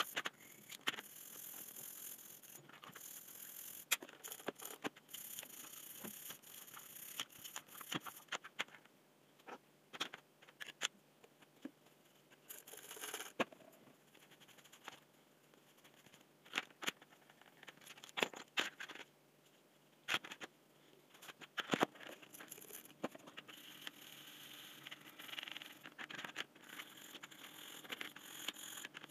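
A small brush scrubbing the plastic parts of a disassembled cordless drill, a scratchy hiss that comes and goes, with many light clicks and knocks as the parts are handled and set down on a plastic tray.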